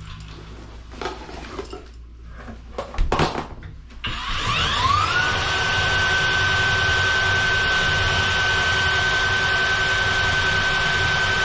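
Kobalt power drain auger's motor spinning up about four and a half seconds in and then running at a steady pitch, feeding its cable down the clogged sink drain. A few knocks and clicks come before it.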